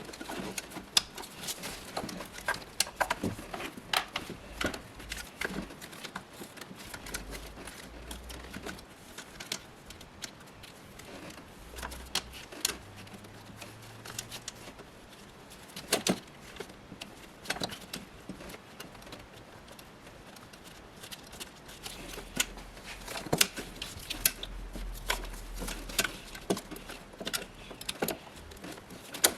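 Hand tools clicking and clinking against metal parts during alternator removal work: irregular sharp clicks, a few louder ones about halfway and near the end.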